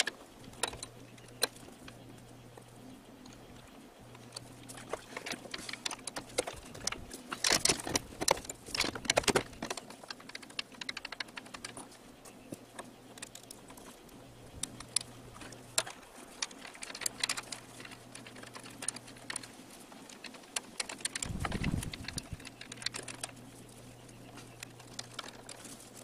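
Small clicks, taps and light rattles of hands fitting a hose and linkage parts onto an Onan generator's carburetor, with a busier run of clicks around eight to nine seconds in and a dull low thump about three-quarters of the way through, over a faint low hum.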